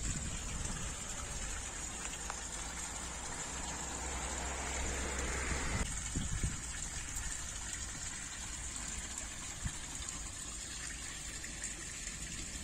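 Water pouring from a small spout in a garden ornamental pool's stone wall and splashing into the pool: a steady gush that grows louder for a couple of seconds in the middle, then drops suddenly.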